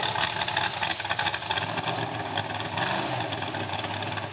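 Mud truck's engine running steadily with a dense crackling noise over it.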